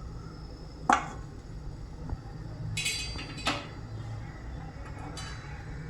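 Kitchen utensils clinking and knocking on a tawa while chapatis are made, with a sharp clink about a second in and another about three and a half seconds in, over a steady low hum.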